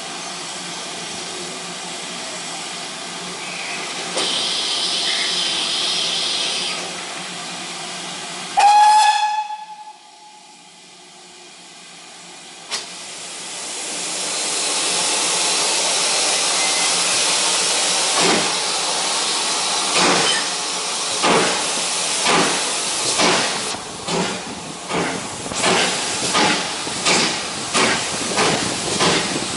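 Steam locomotive hissing as it stands, then a short loud blast on its whistle about nine seconds in. After a lull the hiss builds and the engine pulls away, its exhaust chuffs starting slow and quickening to about two a second.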